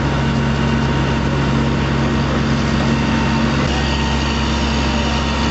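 Fire truck engine running steadily, a loud even hum over a broad hiss. Its low tone shifts about three and a half seconds in.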